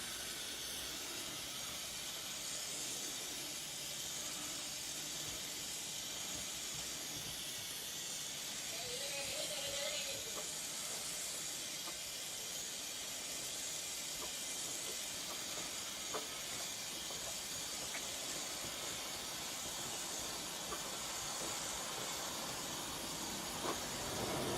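Steady hiss with a few faint ticks.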